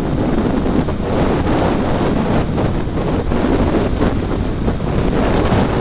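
Wind buffeting the microphone of a motorcycle riding at speed: a loud, steady rush with road noise underneath.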